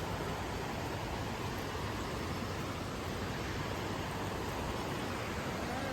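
Steady rush of fast-flowing water from a swollen village stream and waterfall.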